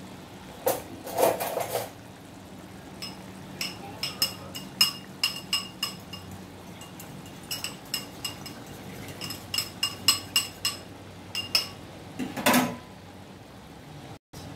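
A metal spatula stirring sauce in a metal wok: many quick clinks and taps against the pan that ring briefly, with two longer scrapes, one about a second in and one near the end.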